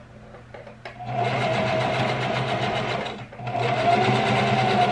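Sewing machine stitching hair tracks onto a wig. It starts about a second in, runs steadily, stops briefly a little past the middle, then runs again.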